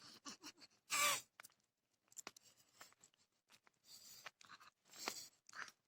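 Faint crunching footsteps and rustling on a walk with dogs: scattered small clicks and scuffs, with one short louder burst about a second in.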